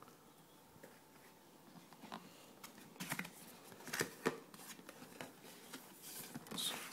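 Cardboard retail box being opened with a Leatherman multi-tool: faint scrapes and clicks of the blade and cardboard, starting about two seconds in, then a soft brushing as the lid is lifted off.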